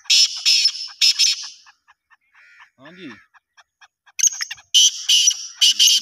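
Caged black francolins calling: two bouts of loud, harsh, high-pitched calls, one at the start and one about four seconds in, with a faint rapid ticking between them.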